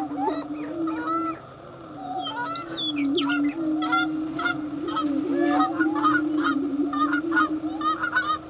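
Greater prairie-chickens calling on their lek: a steady, low booming from displaying males runs underneath, overlaid by many short cackling and whooping calls that come thicker from about three seconds in.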